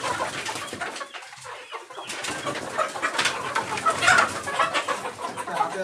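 A flock of Sonali chickens clucking and calling, stirred up by someone moving quickly among them in the pen.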